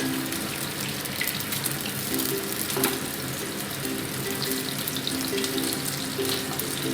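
Eggs scrambling in hot mustard oil in a kadai: a steady sizzle, with a few sharp scraping clicks, over soft background music.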